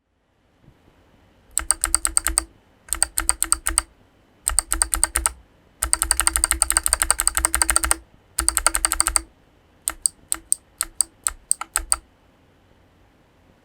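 Kailh Box Jade clicky 70 g switches with keycaps being typed on. Several quick runs of sharp, crisp clicks come first, the longest lasting about two seconds, and then about a dozen separate, evenly spaced presses follow near the end.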